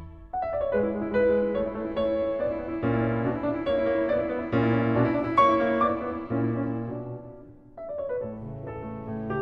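Background music: piano playing a melody over chords, dipping briefly near the end before a new phrase begins.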